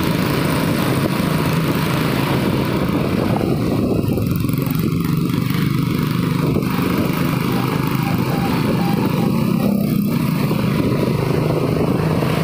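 Motorcycle engine running at a steady cruise while riding, with a steady rush of wind and road noise.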